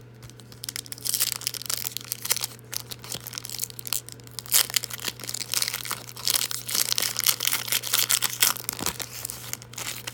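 A trading card pack's wrapper being torn open and crinkled by hand, with dense crackling and sharp crinkles from about a second in until near the end.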